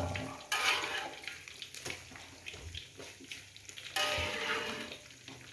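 Coconut-milk gravy bubbling in an aluminium wok on a gas burner, with two sudden swells of noise, about half a second and four seconds in, that fade away.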